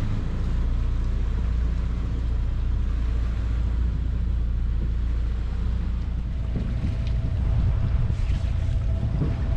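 Catamaran's engine running under way, a steady low rumble. Wind buffets the microphone over the last few seconds.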